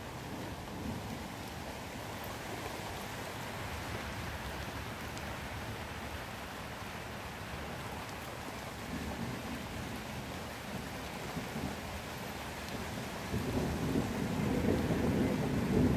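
Rain falling steadily. Thunder rumbles, building up over the last few seconds.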